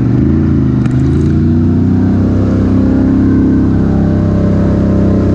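Polaris Sportsman 1000 ATV's twin-cylinder engine chugging along at low revs, picking up slightly in the first second and then holding steady.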